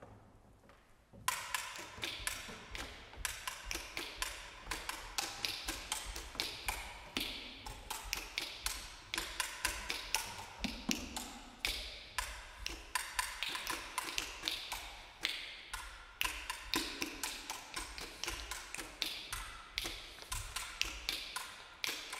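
Marimba played with mallets: a quick, uneven run of struck wooden bars, several notes a second, each ringing briefly, starting about a second in.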